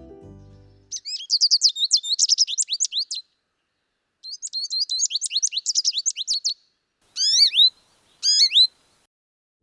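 American goldfinch singing: two long runs of rapid, high twittering notes, followed by two separate rising calls near the end.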